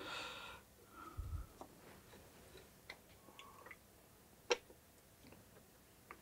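Faint handling of thin wires and a small metal part: light rustling at first, then a few small clicks, the sharpest about four and a half seconds in.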